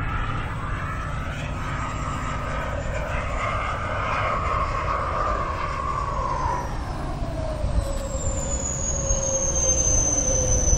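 Model jet flying overhead, its engine whining steadily, the whine sliding lower in pitch through the second half.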